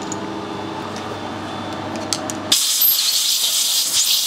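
Steady workshop machine hum, with a few light clicks, then about two and a half seconds in a loud burst of pressurised spray hissing that cuts off abruptly after under two seconds.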